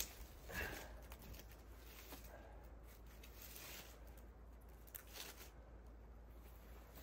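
Faint knocks and rustling as pieces of split firewood are picked up and set on a chopping block, with a short wooden knock right at the start.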